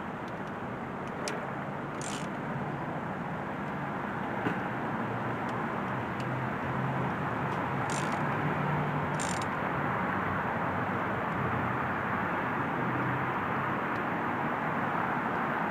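Steady rushing outdoor noise that grows slightly louder, with a few faint clicks.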